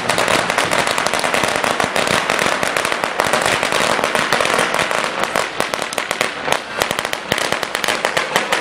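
A string of red paper firecrackers going off in a rapid, continuous crackle of sharp bangs, thinning out a little toward the end.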